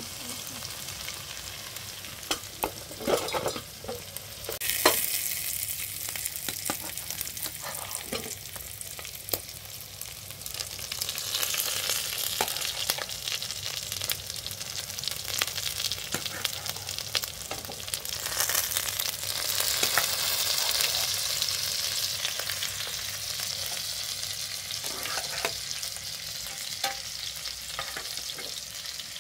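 Food sizzling in a frying pan as it is stirred, with sharp clicks and knocks of the spoon against the pan. The sizzle swells louder twice, near the middle and about two-thirds of the way through.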